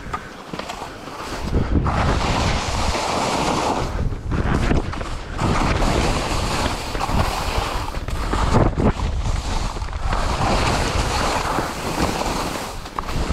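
Wind buffeting the microphone and skis hissing and scraping over lumpy snow on a steep descent; quieter for the first couple of seconds, then louder and surging as speed picks up.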